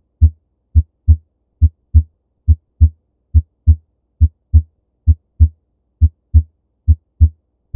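Normal heart sounds through a stethoscope placed high on the chest over the aortic valve area: a steady lub-dub rhythm of short, deep thumps, about 70 beats a minute. Each lub is the atrioventricular valves closing (S1) and each dub the semilunar valves closing (S2), with a longer quiet gap after the dub.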